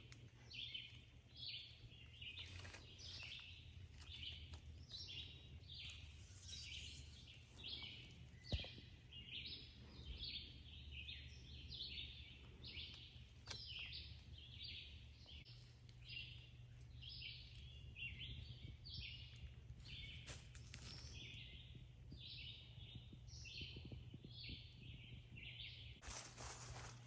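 Faint, regular high chirping, about two to three chirps a second, over a low steady hum. The chirping breaks off about a second before the end.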